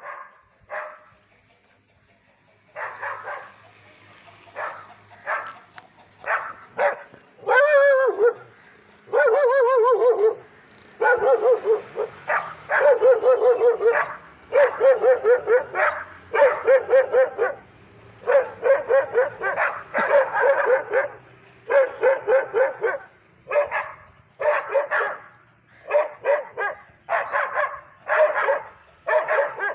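A dog barking aggressively in rapid volleys, burst after burst with short pauses between. About eight and again nine to ten seconds in come two longer wavering cries.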